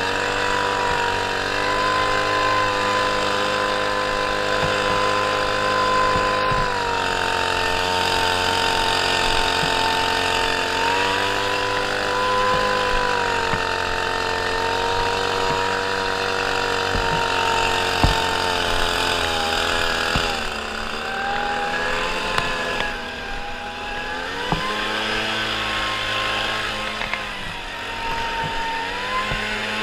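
Lawn mower engine running steadily, its speed dipping and recovering several times in the last third as it takes on load.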